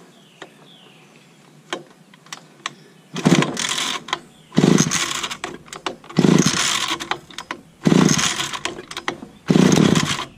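Stihl 015 two-stroke chainsaw being pull-started after fuel was squirted straight into the carburetor: five hard pulls on the recoil starter cord, about one every one and a half seconds, cranking the engine. A few light clicks come first.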